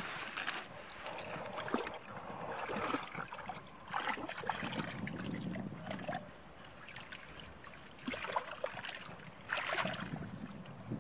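Hands groping and sloshing through shallow muddy water and mud, splashing in irregular bursts that are loudest at the start, about four seconds in and near the end.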